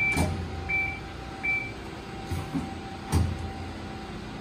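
Amada RG-35S hydraulic press brake running, its 3 hp pump motor giving a steady hum. Three short high beeps come in the first two seconds, and a few thumps follow, the loudest about three seconds in.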